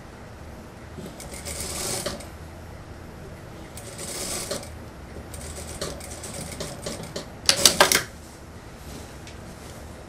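Industrial lockstitch sewing machine stitching a zipper onto a jacket in four short runs with pauses between, the last and loudest run under a second long near the end. A low steady hum lies underneath.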